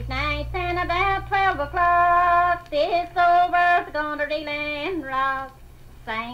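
Background music: a single high voice singing a melody in held notes, over a low drone that drops away about two and a half seconds in.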